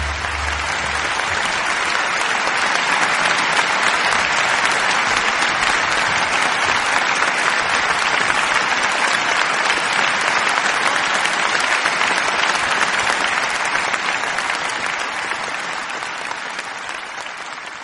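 Applause, steady and even, fading out over the last few seconds. Low notes of a string ensemble's final chord die away in the first second or so.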